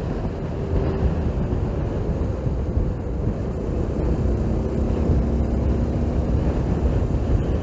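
Wind rushing over the microphone of a motorcycle at cruising speed, with the Honda GTR150's single-cylinder engine running steadily underneath, its pitch drifting a little. The engine is new and being run in.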